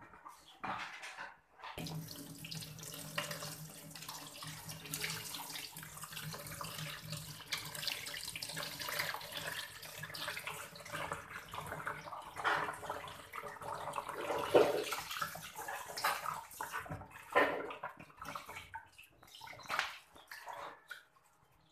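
Kitchen tap running steadily into a sink basin, starting about two seconds in, while chopped wax gourd is rinsed by hand in a plastic colander, with irregular louder splashes.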